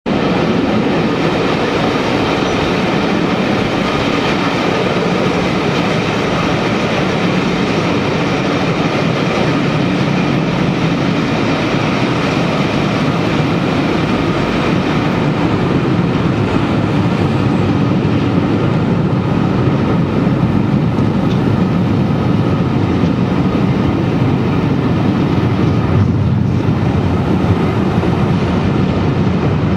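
Loco-hauled passenger train running, heard from an open carriage window: a steady rumble of wheels on rail with the drone of the Class 73 electro-diesel locomotives working on their diesel engines at the head of the train.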